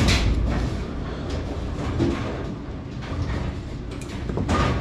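Pliers working a broken bearing shaft out of a bowling pinspotter toggle: faint metal-on-metal handling clicks and scrapes, with a sharp knock at the start, over a steady low rumble.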